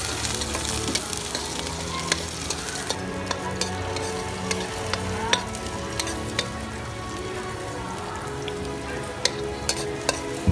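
Chopped food sizzling in hot oil in a wok over a wood fire, stirred with a spatula that clicks and scrapes against the pan now and then, more often near the end.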